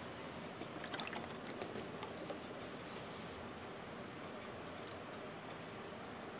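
Steady background hiss with a few faint clicks and a brief rustle about five seconds in; no meow or other call from the kitten.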